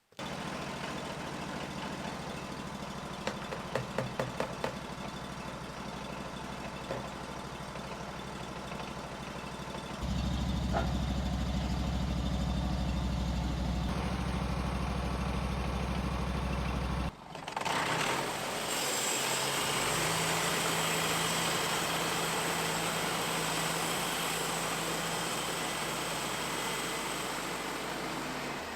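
Portable bandsaw mill's gas engine running, speeding up about ten seconds in. After a sudden break, the mill runs on with a steady hiss over the engine, the band blade cutting through a log.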